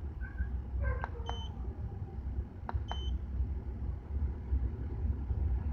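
Two short, high electronic beeps about two seconds apart, with a few thin clicks and fainter short tones, over a steady low rumble.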